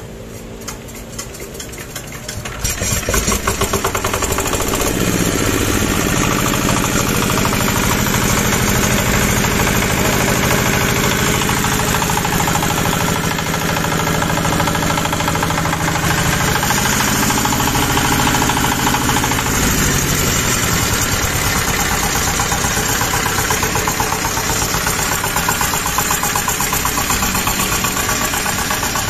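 A Jiangfa R180 single-cylinder diesel engine (8 HP) being hand-cranked, catching about two and a half seconds in and then running steadily with an even, rapid beat, its speed shifting a little now and then.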